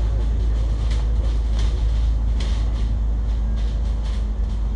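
Bus driving, heard from inside the passenger cabin: a steady low engine drone with a faint hum and a few short rattles.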